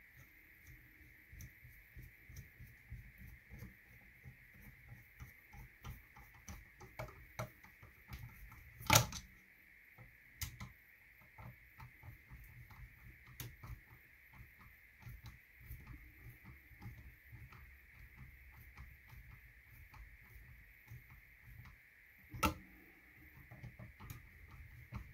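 Screws being driven by hand with a screwdriver into a 3D-printed PETG shooting-rest top: a run of small clicks and scrapes, several a second, with two sharper knocks, one about a third of the way in and one near the end.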